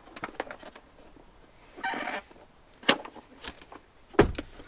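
Handling sounds of boxes and packaging being opened: small clicks, a brief scraping rustle about two seconds in, a sharp tap, and a heavier knock near the end as something is set down.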